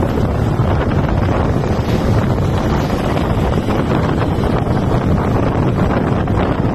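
Wind buffeting the microphone: a loud, steady rumble of noise with no distinct events.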